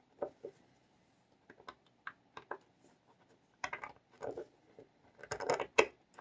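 Small brass padlock and lock tools being handled: scattered light metallic clicks, with two louder clusters of clicking and rattling about four seconds in and near the end.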